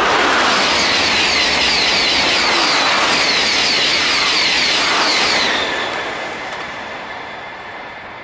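TGV Réseau high-speed trainset passing at speed: a loud rush of wheels on rail and air that holds steady for about five seconds, then fades away as the tail goes by.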